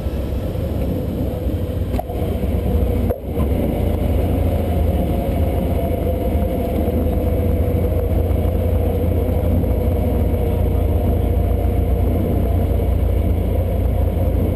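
Cessna 150's four-cylinder Continental O-200 engine and propeller running steadily, heard from inside the cabin. There is a short click about two seconds in and a brief dip in the sound about a second later.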